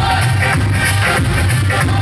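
Bollywood dance track with a steady, bass-heavy beat, played loud for a group dance workout.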